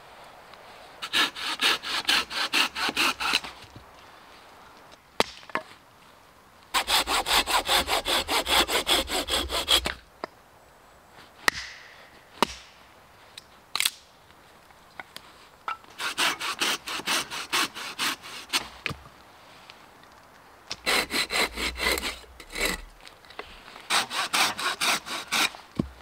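Hand saw cutting through dead wood in five bursts of quick, even strokes, about five a second, with a few single knocks of wood between the bursts.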